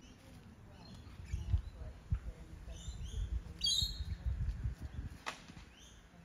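Musk lorikeets giving a few brief shrill screeches, the loudest about halfway through, over a low rumble.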